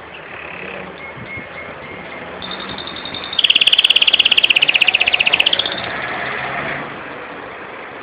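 Domestic canary singing: a few soft high notes, then about three and a half seconds in a loud, fast trill of about a dozen notes a second lasting around two seconds, trailing off into quieter notes.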